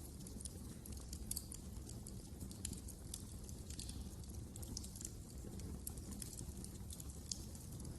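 Wood fire burning in a fireplace: frequent irregular crackles and pops over a steady low rumble of the flames.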